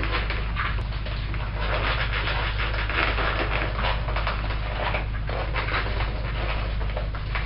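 A cockatoo making a continuous run of raspy, breathy noises with no clear pitch, over a steady low hum.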